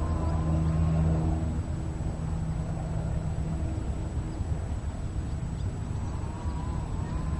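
An engine running steadily: a low drone, strongest in the first couple of seconds and again near the end, with a faint wavering whine above it.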